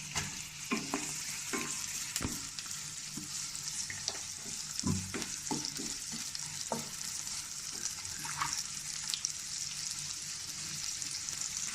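Sliced onion, garlic, ginger and green chilli frying in hot oil in a kadai, a steady sizzle. A spatula clicks and scrapes against the pan now and then as it is stirred.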